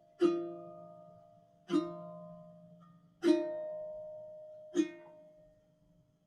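Background music: four plucked-string chords about a second and a half apart, each ringing out, with the last one fading away near the end.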